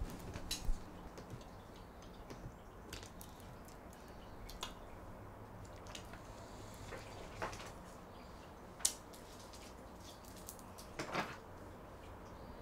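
Quiet room with scattered small clicks and handling noises, a sharper click about nine seconds in and a short cluster of clicks near the end.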